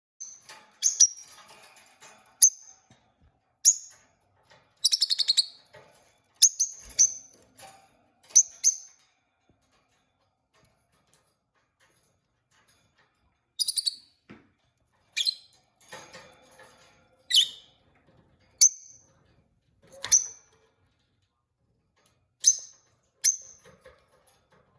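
Peach-faced lovebirds chirping in short, sharp, high calls, some single and a few as quick buzzy trills, with a pause of a few seconds midway.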